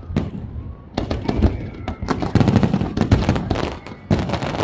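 Fireworks display: rapid volleys of sharp bangs and crackling from aerial shells bursting. A dense volley begins about a second in, eases off near the end, and another breaks out just after four seconds.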